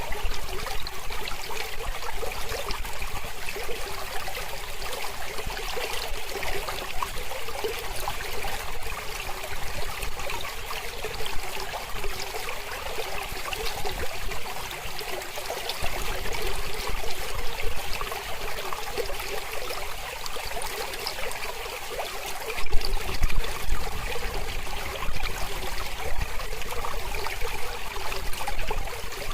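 Small mountain river flowing and trickling over rocks, a steady splashing rush of water.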